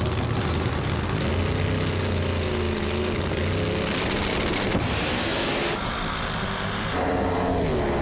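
Drag race cars' engines running hard at full throttle, the pitch rising and falling as they launch off the line and run down the strip. The sound changes abruptly about six and seven seconds in.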